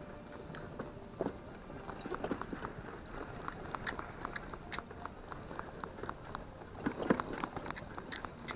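Shetland pony trotting in harness on the soft arena footing, with carriage and harness noise: a steady run of quick light hoof clicks and crunches, and one louder knock about seven seconds in.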